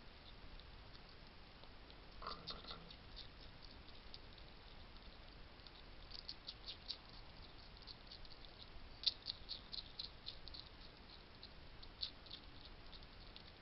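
Wild European hedgehogs crunching dry food at a feeding station: faint, irregular crisp clicks in clusters, the loudest about nine seconds in.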